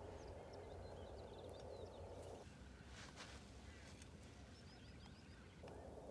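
Near silence: faint open-air ambience with a few soft bird chirps and a brief rustle about three seconds in.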